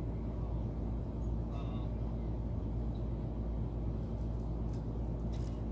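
A steady low machine hum runs throughout, with a few faint sharp clicks late on.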